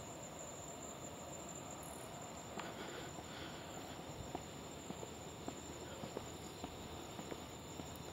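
Crickets chirring steadily. A few seconds in, light footsteps on a paved path join them, about two steps a second.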